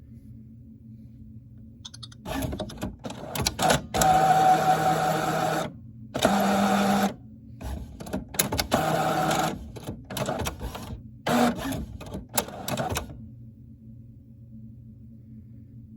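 Printer mechanism working in spurts: a run of clicks, then several loud motor runs of a second or two each with clicks between them, stopping about three seconds before the end. A low steady hum sits underneath throughout.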